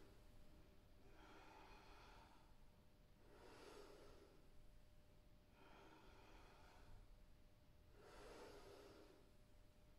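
Faint breathing of a woman doing yoga twists: a soft breath roughly every two seconds, in an even rhythm, over near silence.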